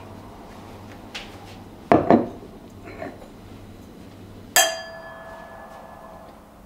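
Two stemmed wine glasses clinked together in a toast: one bright chink that rings on clearly for over a second, about four and a half seconds in. Two short knocks come a couple of seconds earlier.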